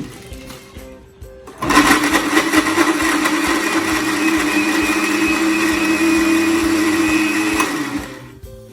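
Electric blender switched on about two seconds in, running steadily for about six seconds as it grinds pieces of leftover mamon sponge cake, then winding down near the end.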